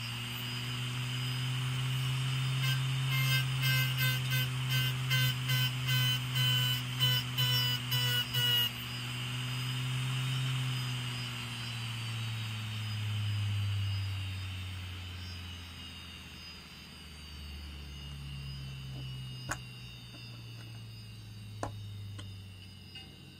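Spindle motor of a 3.5-inch, 5400 rpm hard drive spinning its platter under a separate BLDC motor controller: a steady electric hum with a high whine above it. For several seconds early on the hum pulses about twice a second. Later its pitch slides down and then comes back up, and there are two short sharp clicks near the end.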